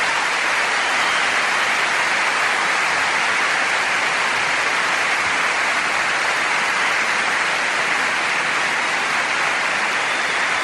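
Steady hiss of heavy rain, an even downpour sound with no breaks.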